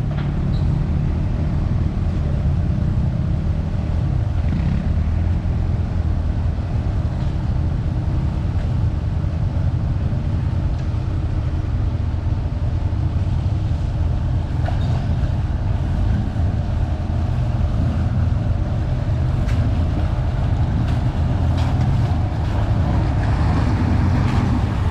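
A Willys jeep's engine running steadily with a low drone, with a few light clicks in the last several seconds.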